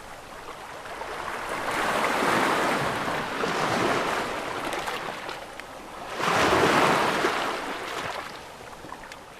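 Ocean waves crashing close up: one wave builds and washes in about two seconds in, and a second, louder one breaks suddenly a little past six seconds, its wash then fading away.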